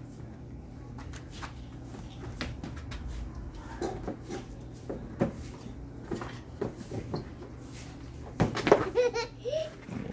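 A toddler babbling and giving short laughs, loudest near the end, among scattered light knocks and bumps as the child climbs on a plastic toy slide.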